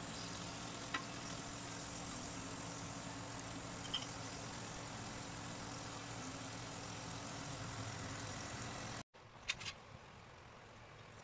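Shrimp sizzling in hot oil in a frying pan, over a steady low hum, with a couple of faint utensil ticks. About nine seconds in the sound cuts off abruptly and gives way to a softer sizzle with a few small pops from the oil left in the emptied pan.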